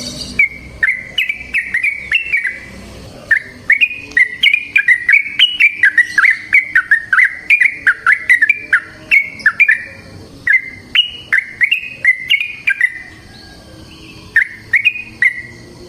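Yellow-vented bulbul (trucukan) singing its rapid bubbling song in phrases of quick up-and-down slurred notes, the longest lasting about six seconds, with short pauses between phrases.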